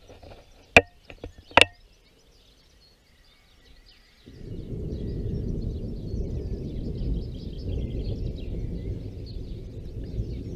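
Two sharp knocks about a second in, then, from about four seconds in, a steady low rumble of thunder rolling on, from lightning about 2 km away.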